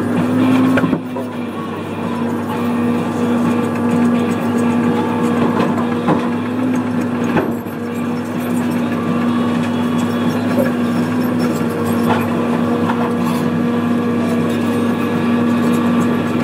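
Diesel engine of a John Deere excavator running steadily at working speed, a constant hum, with a few sharp knocks as broken concrete is loaded into a steel demolition bin.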